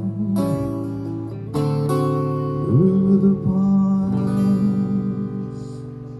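Acoustic guitar strumming the closing chords of a song, with a wordless sung note held over them about three seconds in; the last chord rings out and fades away.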